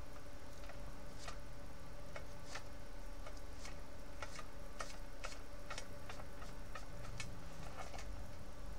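Light, irregular clicks and taps of a plastic model airplane being handled and worked on by hand, a few a second, over a steady faint hum.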